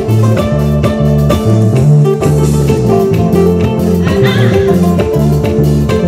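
Live band playing a song with a steady beat: a bass line, guitar and drums.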